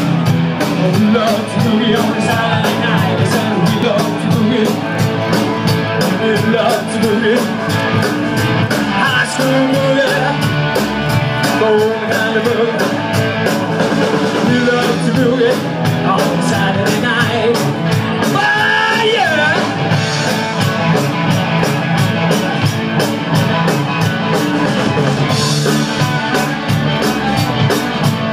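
Live rock-and-roll band playing: electric guitars, bass and drum kit with a steady beat.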